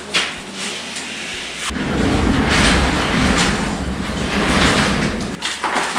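Overhead sectional garage door rolling open along its tracks: a steady rumble that starts about two seconds in and stops abruptly shortly before the end.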